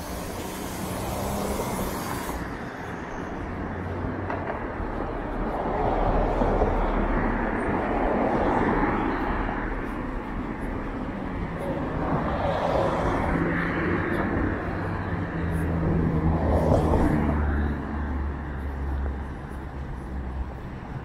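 City street traffic: several cars pass close by one after another, their tyre and engine noise swelling and fading over a low steady engine hum.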